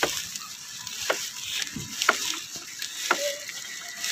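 Rain falling on pavement, a steady hiss, with faint knocks about once a second.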